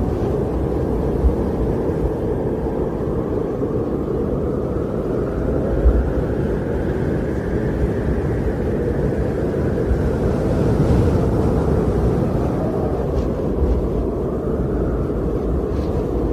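Wind blowing in a low, steady rush that swells and eases every few seconds, with a couple of brief low gusts.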